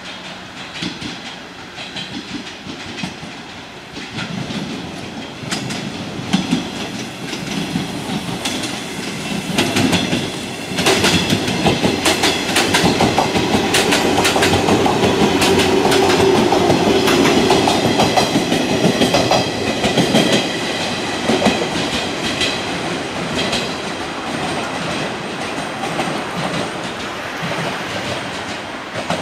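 JR West 115 series electric train pulling away from a station and passing close by, its wheels clicking over rail joints and points. The sound grows to its loudest about halfway through, with a steady hum while the cars go by, then eases as the train moves off.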